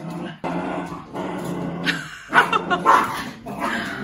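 Small dogs scuffling, with a steady low growl for the first couple of seconds, then a few short, sharp barks and yips.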